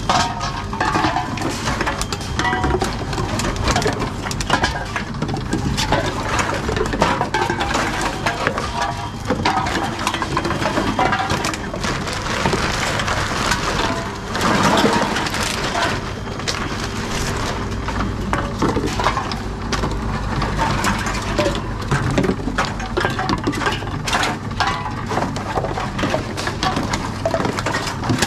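Reverse vending machines taking in aluminium drink cans and plastic bottles: a run of clatter, clinks and knocks as containers are handled from the trolleys and fed in one after another, over a steady low machine hum. A louder, noisier stretch comes about halfway through.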